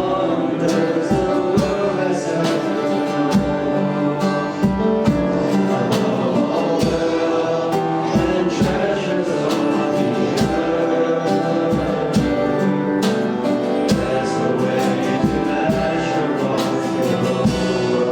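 Church worship band playing a gospel-style song with singing and guitar over a steady beat.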